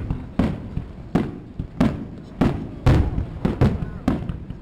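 Aerial firework shells bursting in quick succession: about nine sharp booms, roughly two a second, each trailing off in a rumble, the loudest about three seconds in.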